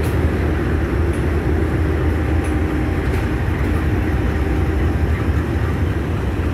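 Minnesota Commercial Railway diesel-electric locomotives hauling a freight train past at low speed, their engines giving a steady, even running sound.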